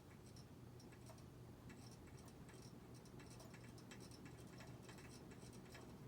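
Hampton Bay Grayton ceiling fan running on medium speed: a faint steady motor hum with quick, irregular light ticking from its loose light kit rattling.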